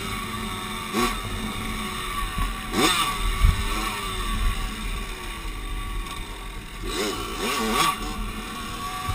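Dirt bike engine running as the bike is ridden, revving up and easing off several times: about a second in, around three seconds in, and twice near the end.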